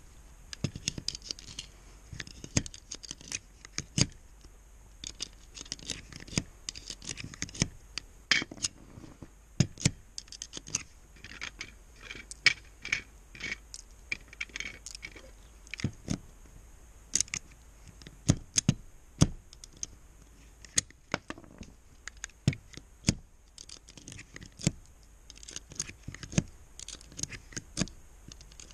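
9mm cartridges being pushed one at a time into an M&P Shield pistol magazine by hand: a sharp click every second or so as each round seats against the magazine spring, with cartridges scraping and rattling in between.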